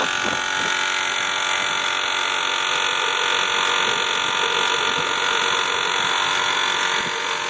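Steady buzzing whine of a small electric pump feeding a homemade waste-oil burner, with high-pressure air hissing through the burner nozzle. No oil has reached the nozzle yet, so only air is coming through.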